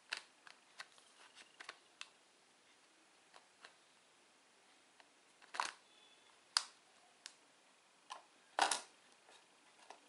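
Plastic clicks and knocks of a drip coffee maker's filter basket being lifted out, turned over in the hands and set back into the machine under its open lid. A run of light clicks comes first, then a few louder knocks and snaps, the loudest near the end.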